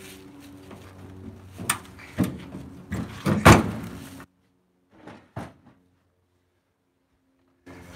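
Heavy ash firewood rounds being rolled and set down in a pickup truck's bed: a run of hollow wooden thuds and knocks against the bed and tailgate, the loudest about three and a half seconds in. The sound then drops out for about three seconds, with two faint knocks in the gap.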